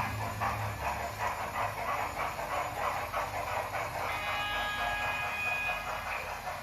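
Steam exhaust chuffs from a model Union Pacific Big Boy locomotive's sound effects, an even beat of about four to five chuffs a second. A held chord of steady tones sounds over it from about four to six seconds in.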